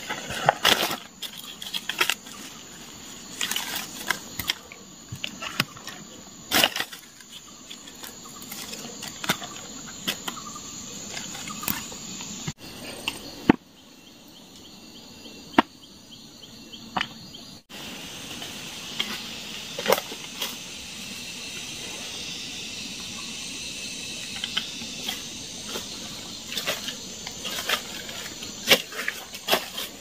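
Fallen forest fruit being picked up from dry leaf litter and dropped into a plastic basket: rustling and many short, sharp knocks and clicks. A steady high buzz of insects runs underneath.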